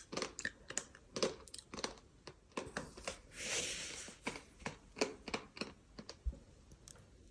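Close-miked crunching of a gritty, crumbly substance: a rapid, uneven run of sharp crackles and clicks, with a longer hissing crumble about three seconds in.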